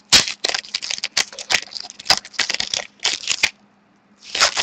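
Trading card pack being opened by hand: the wrapper crackles and crinkles in a quick series of sharp rustles as the cards are pulled out and handled. It pauses briefly about three and a half seconds in, then starts again.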